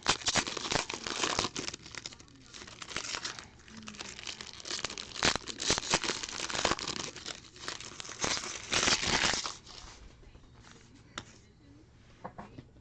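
Basketball card pack wrappers being torn open and crinkled by hand, a dense run of crinkling that stops about ten seconds in, followed by a few faint clicks.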